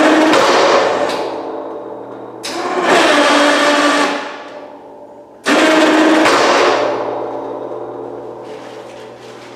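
Electric KFI winch on a Prowler 500 plow mount run in three bursts to lower a steel snow plow blade. Each burst starts suddenly and fades away, with a steady low hum underneath.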